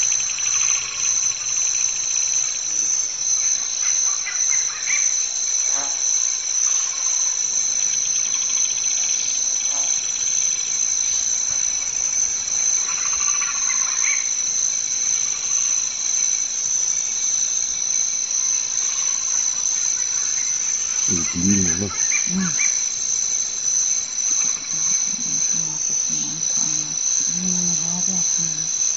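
Steady, high-pitched insect chorus with an unbroken drone. A few short low calls break in during the second half.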